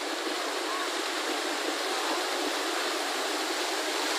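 Fountain jets splashing steadily into a pool: a constant rush of falling water.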